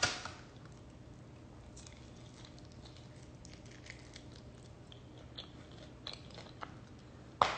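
A person biting into and chewing curly fries: a loud bite right at the start, then faint scattered chewing clicks, and a sharp click near the end.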